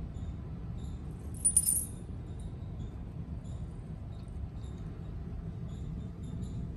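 A steady low hum, with one short, bright metallic jingle about one and a half seconds in.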